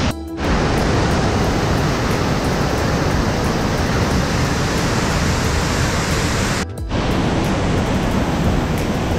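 Waterfall close by, a loud, steady rush of falling water and spray. It briefly drops out twice, just after the start and about seven seconds in.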